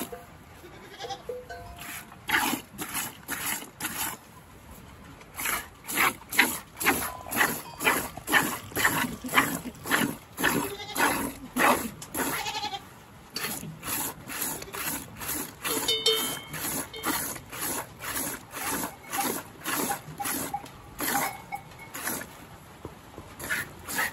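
Goat being milked by hand: jets of milk squirting into a container in a steady rhythm of about two squirts a second.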